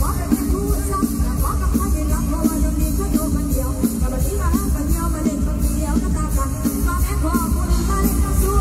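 Live mor lam band music played loud through a stage PA: a heavy bass and drum beat under a wavering melody line, in the fast lam sing style.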